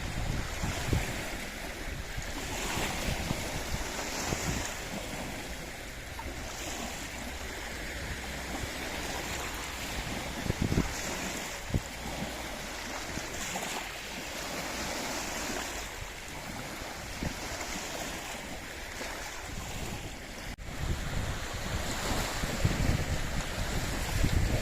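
Small waves on Loch Ness washing in again and again, with wind buffeting the microphone in low rumbling gusts that grow stronger near the end.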